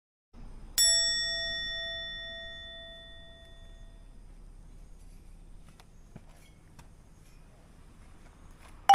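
A single bright bell-like chime, struck once and ringing out as it fades over about three seconds, then a short, loud whistle sweeping quickly up in pitch near the end.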